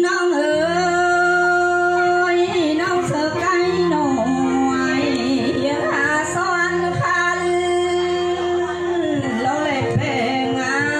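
A female voice sings a Thái khặp folk song in long, gliding, ornamented held notes over a steady sustained drone. A low held accompaniment note comes in about half a second in.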